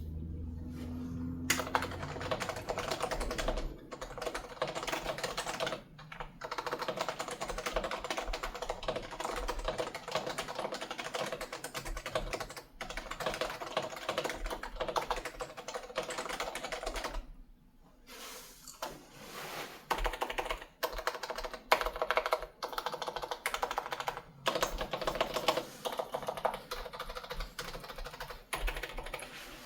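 Steady typing on a stock HHKB Type-S Snow keyboard with its silenced Topre electro-capacitive switches. The typing starts about a second and a half in and breaks off briefly a little past halfway.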